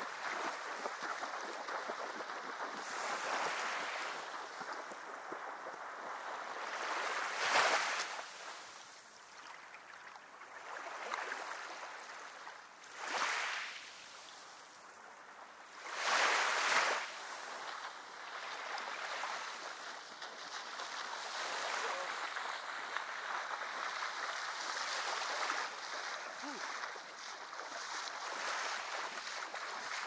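Small sea waves lapping on a sandy shore: a steady wash, with three short louder surges as waves break, the longest a little past halfway.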